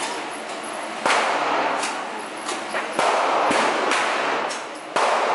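Gunshots in an indoor shooting range: three loud shots about two seconds apart, each echoing off the hall, with a few fainter cracks between them.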